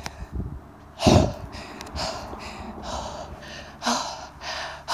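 A person breathing hard in short, noisy gasps, about one or two a second, with the strongest breath about a second in and another at the end.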